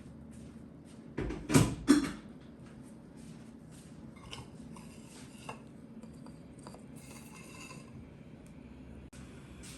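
Dishes and cutlery being handled in a kitchen: two loud clatters about one and a half to two seconds in, then lighter clinks and rustles, over a low steady hum.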